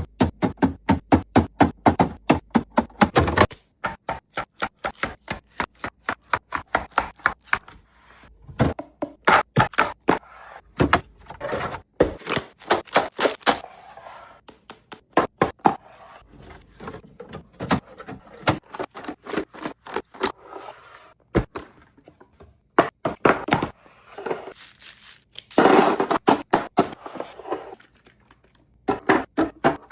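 Items being set down and moved about while a fridge is restocked: a fast run of taps and knocks, then scattered thunks and scrapes, with a longer scraping stretch near the end.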